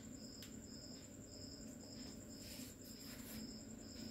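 Faint cricket chirping, a high chirp repeating about twice a second, over a low steady hum.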